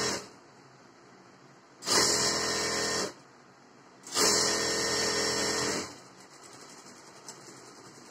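Electric sewing machine stitching fabric and lining together in two short runs of steady motor and needle noise, about a second and a second and a half long, with a pause between; it stops about six seconds in.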